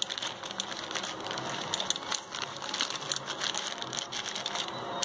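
Plastic courier mailer crinkling and rustling in the hands as it is cut open with a snap-off utility knife: a dense, continuous run of crackles.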